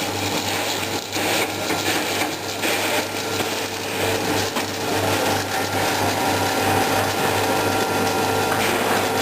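Horizontal H-beam welding machine running: a steady noise over a constant low electrical hum.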